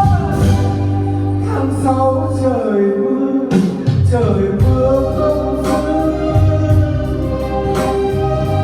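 Music from a Vietnamese ballad: long held melody notes, some sliding in pitch, over a steady bass line.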